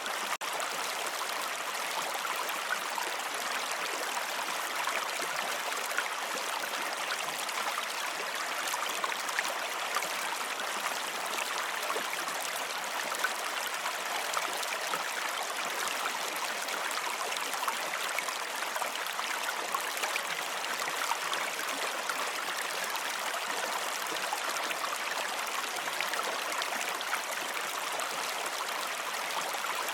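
Steady running water, like a flowing stream: an even, unbroken rush with fine splashing detail.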